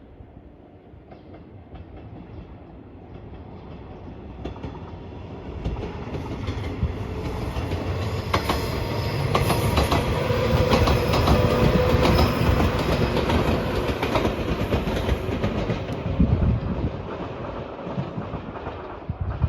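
A train passing over a level crossing with its wheels clicking over the rail joints. It grows louder through the first half and fades somewhat near the end.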